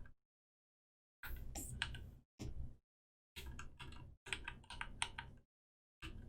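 Computer keyboard typing: quick runs of key taps in four short bursts, with dead silence between them.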